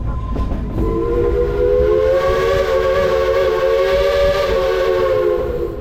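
Steam locomotive whistle blowing one long chord of several tones for about five seconds, over the low rumble of the train running.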